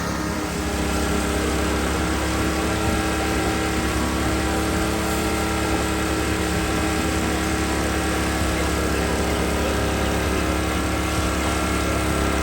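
An engine running steadily at constant speed, a droning hum with no change in pitch or loudness.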